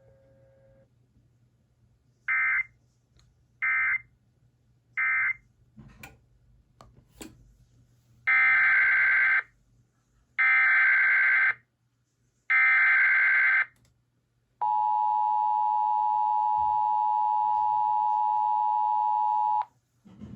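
Emergency Alert System tones: three short SAME data bursts (the end-of-message code), then three longer SAME header bursts about two seconds apart, then the two-tone EAS attention signal held steady for about five seconds before cutting off.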